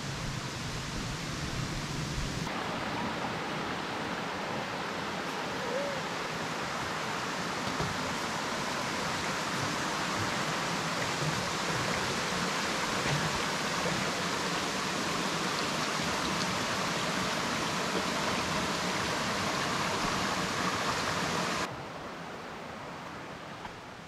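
Small woodland creek running, a steady rush of water that comes in suddenly about two seconds in and drops away suddenly near the end.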